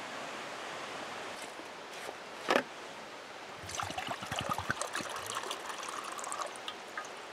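Water poured from a plastic canteen into a metal cup, splashing and trickling for about three seconds from halfway through. Under it, the steady rush of a rain-swollen creek, with a single sharp knock a couple of seconds in.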